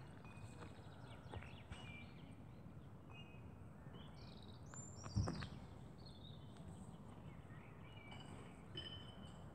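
Faint outdoor ambience with small birds chirping on and off, and one brief low thump about five seconds in.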